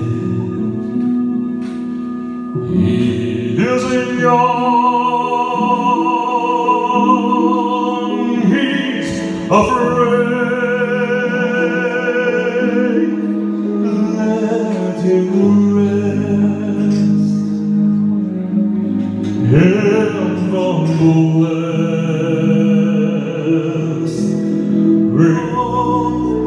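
A man singing live into a handheld microphone over backing music, holding long notes with vibrato.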